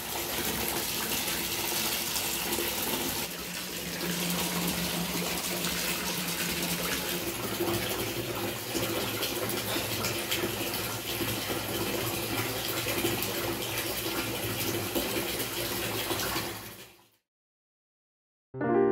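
Bath tap pouring a steady stream into a filling bathtub, the water running over a bath froth balm bar held under it. It fades out about seventeen seconds in, leaving a moment of silence.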